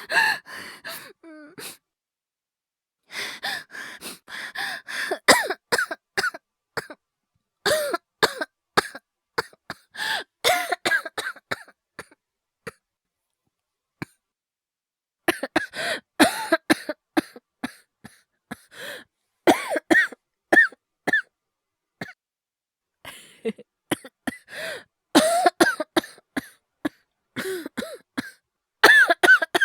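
A man's acted coughing: several fits of repeated, rasping coughs separated by short pauses of dead silence, performed as a sick person's cough.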